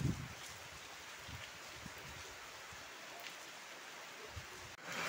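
Steady hiss of heavy rain falling at night, with a few dull low thumps, the loudest right at the start. The hiss cuts off suddenly near the end.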